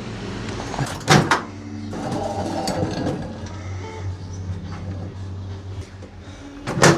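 Handling knocks as the microwave kiln is set into a microwave oven: two sharp knocks about a second in and a louder clunk near the end, over a steady low hum.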